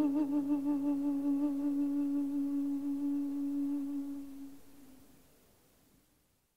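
Background music ending on one held note that wavers and fades out over about five seconds, until silence.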